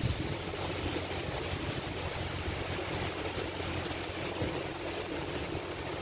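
Damaging thunderstorm winds blowing hard through the trees, a steady rushing noise, with gusts buffeting the microphone in an uneven low rumble.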